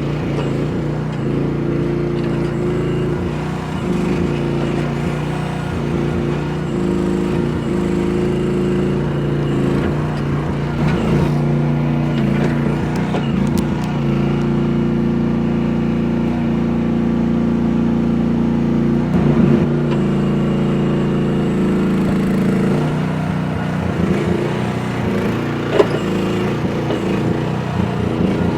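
Engine of a construction machine running steadily at a constant speed, with a few short knocks or clanks.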